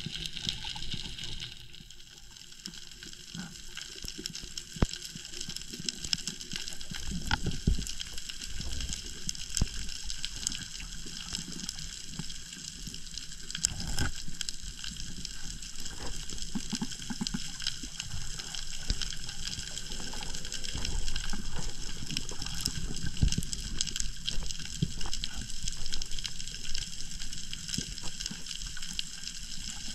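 Underwater sound picked up by a camera on a rocky reef during a freedive: a steady hiss with many scattered sharp clicks and crackles, and low rumbles of water moving around the camera.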